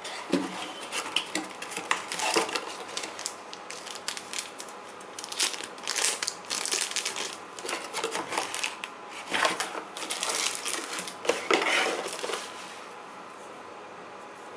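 Cardboard box flaps, paper leaflets and plastic packaging being handled: crinkling and scraping with small clicks and knocks, in several bursts, stopping a little before the end.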